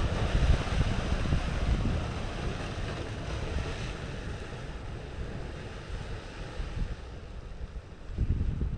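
Surf breaking and washing over the boulders of a rock jetty, loudest in the first couple of seconds and then easing off, with wind buffeting the microphone near the end.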